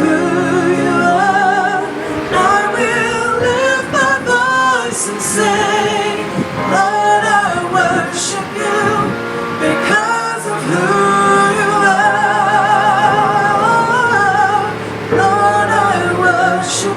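Gospel worship music with a woman singing long, held notes with vibrato over the accompaniment.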